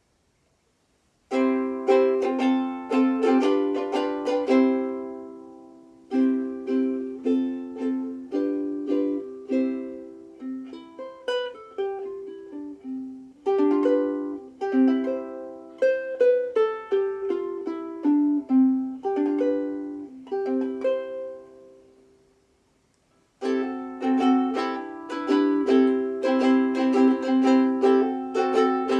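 A Sumi Ditson-style soprano ukulele with an all-mahogany body and fluorocarbon strings being played: strummed chords mixed with runs of single notes. The playing starts about a second in, lets a chord ring out to near silence about two-thirds of the way through, then resumes with brisk strumming.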